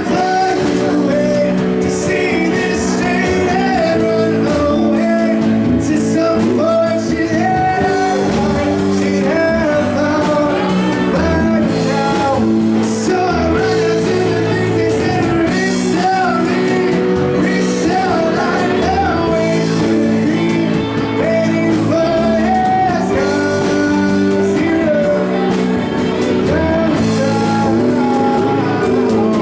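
Live band playing a rock song: male lead vocal over sustained keyboard chords, electric guitar, bass and drums.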